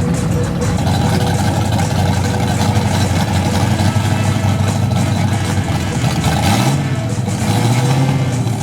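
A car engine running, revved up briefly twice near the end.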